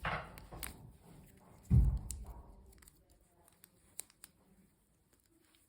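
Hands handling packaging: a short rustle at the start, a loud low thump just under two seconds in, then a few faint clicks.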